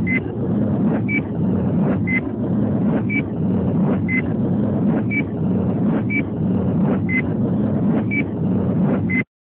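Countdown-leader sound effect: a short high beep once a second, ten in all, alternating between two close pitches, over a steady loud rumbling noise. Everything cuts off suddenly near the end.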